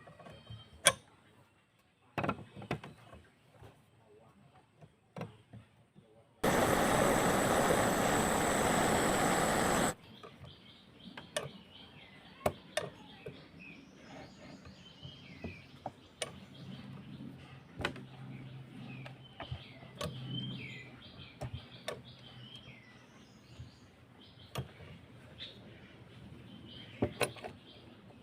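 Scattered clicks and knocks of hand-tool and metal-part handling, then a loud, steady hissing noise lasting about three and a half seconds that stops abruptly. After it come faint bird chirps over a low hum, still broken by occasional clicks.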